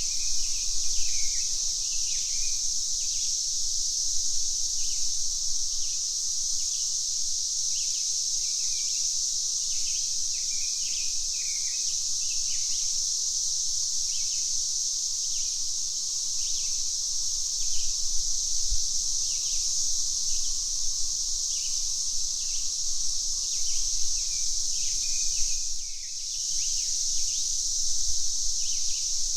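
Cicadas droning continuously at a high pitch, with birds chirping short, repeated calls over them. The insect drone dips briefly about three-quarters of the way through.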